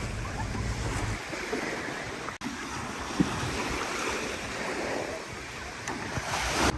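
Sea water washing and splashing, with wind buffeting the microphone. The sound breaks off for an instant a little over two seconds in.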